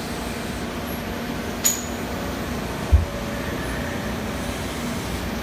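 Star SR-32J Type N sliding head CNC lathe running behind its closed guard, giving a steady mechanical running noise. A sharp click comes about a second and a half in, and a short low thud about three seconds in.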